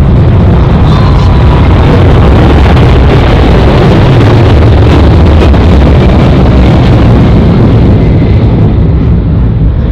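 Boeing 767-300ER's twin jet engines at takeoff power, a loud deep roar that eases off a little near the end.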